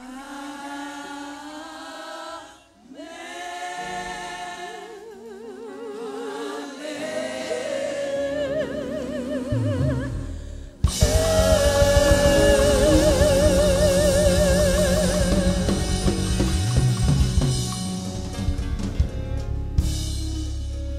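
Gospel singing: voices hold long notes with vibrato. About eleven seconds in, a full band with drums and bass comes in and the music gets much louder.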